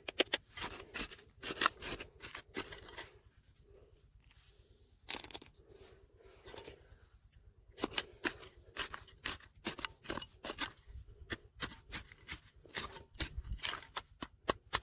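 Rapid sharp clicks and scrapes of stones and gravel being dug and handled, in two busy runs with a quieter stretch between about four and seven seconds in.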